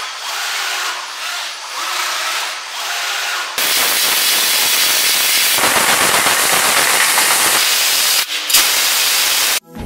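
Fiber laser cutting machine cutting metal: a hiss of gas from the cutting head with crackling from the cut. It swells and fades for the first few seconds, jumps louder about three and a half seconds in, and cuts off suddenly near the end.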